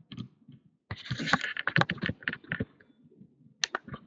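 A quick flurry of small plastic clicks from a computer mouse, with two or three more single clicks near the end, as the randomizer's "Again!" button is clicked.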